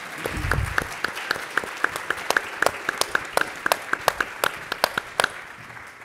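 Audience applauding, with one person's sharp claps close to the microphone at about five a second standing out over the crowd. The applause dies away near the end.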